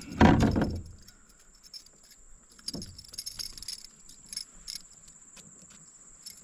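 Insects buzzing in a steady, high, even drone, with a loud dull thump right at the start and scattered light clicks and rattles a few seconds in.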